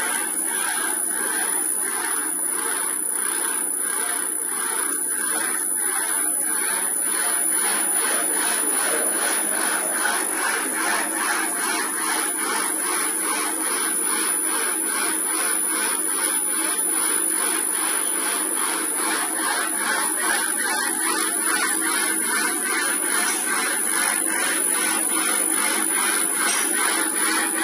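Automatic ribbon and elastic festooning packing machine running, a steady mechanical clatter with a regular beat of about two to three strokes a second as its carriage folds the tape back and forth.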